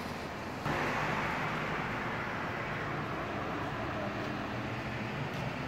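Steady roar of a Boeing 777's jet engines: a dense rushing noise over a low hum, turning suddenly louder less than a second in and holding there.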